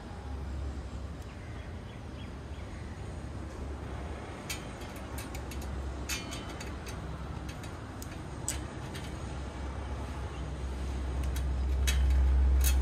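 Light clicks and taps of small hardware handled against a metal frame as a bolt, rubber washer and plastic knob are fitted to a bracket, scattered from a few seconds in. Under them a steady low rumble that grows louder near the end.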